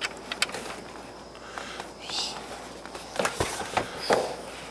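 Scattered clicks and knocks of a screw and cordless drill being handled against a metal solar-panel bracket on a ribbed steel roof, with a cluster of knocks a little past three seconds in.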